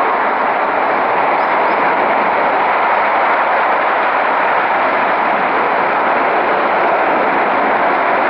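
Gas escaping from a ruptured gas pipeline and burning as a huge jet of flame, making a loud, steady rushing noise that does not change.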